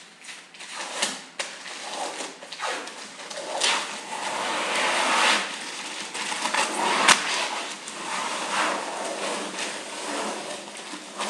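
IJ35C vinyl wrap film being handled and worked onto a refrigerator's surface: irregular scraping and rustling strokes, with a sharp click about seven seconds in.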